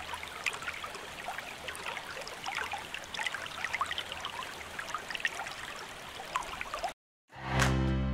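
Stream water trickling and babbling, with many small quick splashes. It cuts off suddenly about seven seconds in, and after a short silence plucked acoustic guitar music starts near the end.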